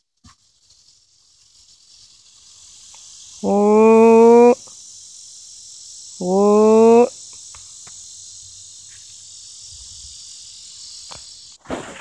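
A steady high-pitched insect drone that builds up over the first couple of seconds and cuts off abruptly near the end. Twice in the middle, a loud drawn-out voice call of about a second, rising slightly in pitch, stands out above it.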